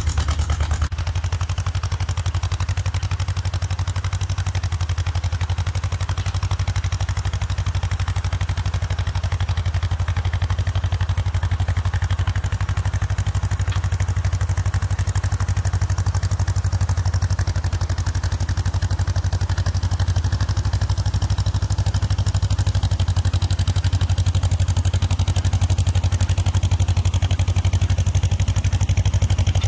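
1954 John Deere 40's two-cylinder engine running steadily as the tractor pulls a 20-blade disc harrow through garden soil.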